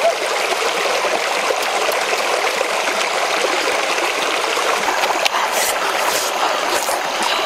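Shallow stream running over rocks, a steady even rush of water. Near the end come a few faint crunching bites into watermelon rind.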